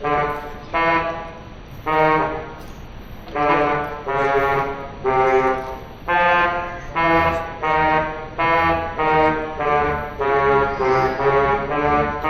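Theatre pipe organ playing a slow melody of single sustained, reedy notes, one after another, coming a little faster towards the end.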